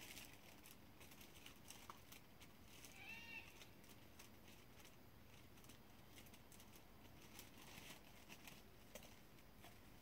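Faint night-time outdoor ambience: scattered soft ticks and crackles, with one brief chirping call about three seconds in.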